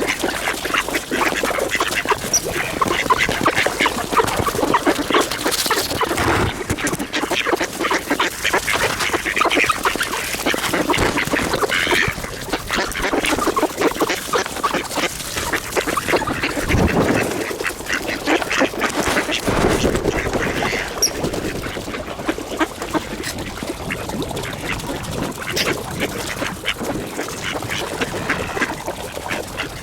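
A flock of mallard ducks quacking continuously, many calls overlapping, as they feed on scattered birdseed.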